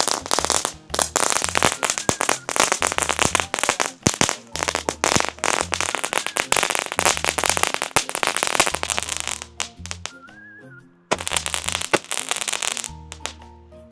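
Consumer fireworks crackling and popping in rapid, dense strings of cracks, breaking off for about a second near the end before starting again, over background music with a steady bass line.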